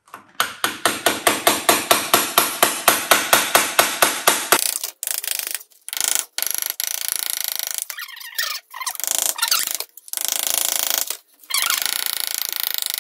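Hammer tapping a chisel against ceramic wall tiles in a fast, even run of about five light blows a second, chipping the tiles off. About four and a half seconds in, the blows give way to scraping strokes of the chisel over the tile and adhesive, about a second each with short pauses, some of them squeaking.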